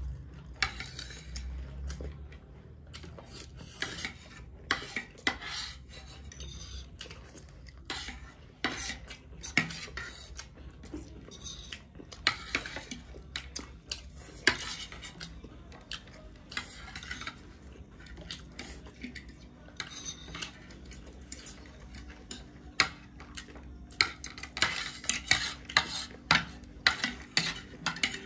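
Forks and spoons clinking and scraping against plates as two people eat chowmein noodles, in many sharp clicks that come thicker near the end.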